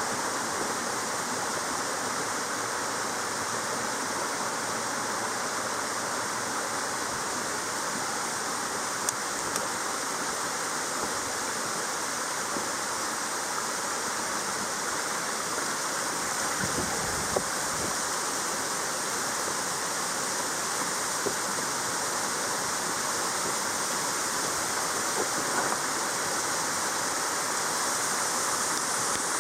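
Steady rush of flowing water, unbroken throughout, with a few faint clicks now and then.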